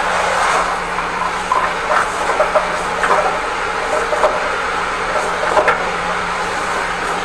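High-pressure drain jetter running steadily as its turbo drill nozzle works at a clog in a toilet drain pipe. Irregular knocks and clacks come from the hose as it is fed in by hand.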